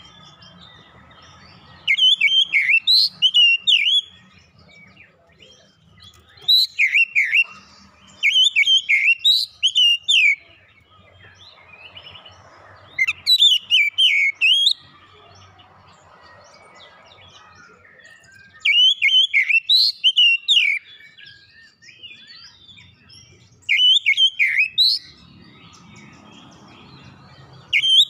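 Oriental magpie-robin (kacer) singing loudly in short bursts of rapid whistles and chirps, each a second or two long, repeated every four to five seconds with quiet pauses between.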